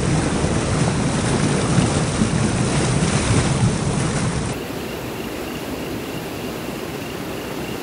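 Fast-flowing mountain river rushing over rocks, a steady wash of water noise that drops to a quieter level about four and a half seconds in.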